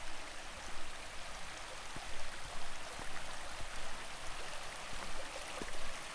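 Justice Creek, a small mountain creek, flowing over rocks: a steady wash of water noise.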